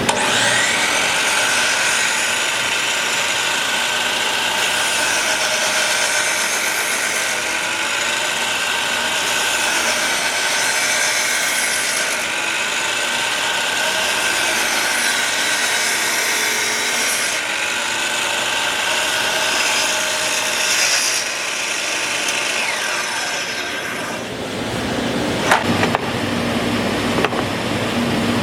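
A woodworking power tool running steadily on wood with a high whine, spinning down about 24 seconds in. A lower background hum and a single sharp click follow.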